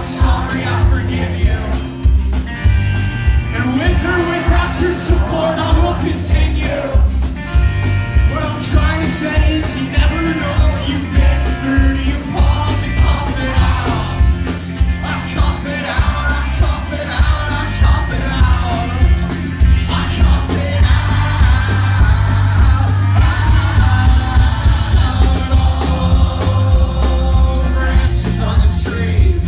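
Live rock band playing a song with a lead vocalist singing over guitar, heavy bass and a steady drum beat, loud as heard from the concert floor.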